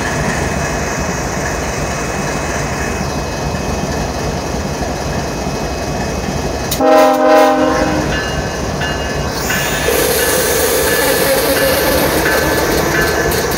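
CSX GE ES44AC-H locomotive's GEVO-12 diesel engine running under power as it pulls past slowly, with a steady rumble. About seven seconds in, a short air horn blast of about a second sounds a chord. The engine grows a little louder for the last few seconds.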